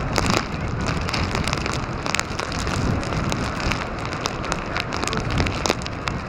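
Hurricane wind-driven rain and sea spray with storm-surge waves breaking over a seawall: a dense, steady hiss full of sharp crackling taps over a low rumble.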